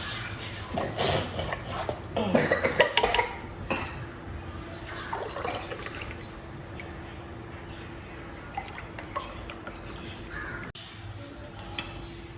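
Kitchen clatter: dishes and utensils clinking several times in the first few seconds, then a steady low hum with a few faint knocks.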